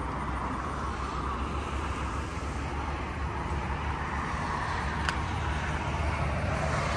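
Steady low hum of vehicle and traffic noise with a hiss over it, growing slightly louder near the end, and a single sharp click about five seconds in.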